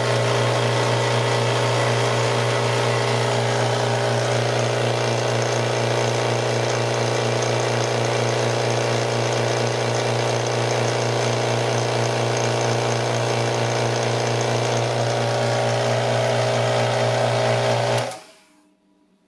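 Small electric air compressor running steadily, its motor and pump turning freely now that a dirt dauber's nest that had jammed it has been cleared, building pressure in the tank. It cuts off suddenly shortly before the end.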